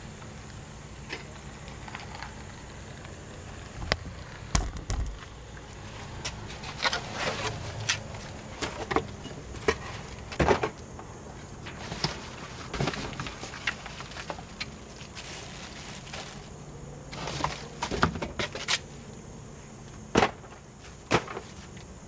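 Cardboard boxes, produce packs and plastic trash bags being rummaged through and shifted around inside a dumpster: irregular rustling, scraping and short knocks, some sharp and loud.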